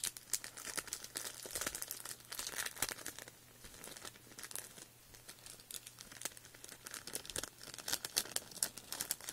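Plastic and tissue-paper packing crinkling and rustling as it is handled, in irregular crackles that get busier near the end.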